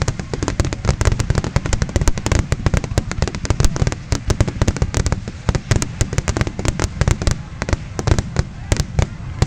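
Fireworks finale: a dense, rapid barrage of bangs and crackles, many per second, over a continuous low rumble of bursting shells.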